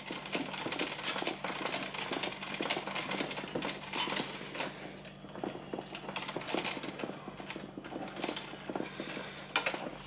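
Brass screw couplings on copper refrigerant lines clicking and rattling as they are unscrewed by hand and pulled apart, with irregular small metallic clinks throughout, busiest in the first half.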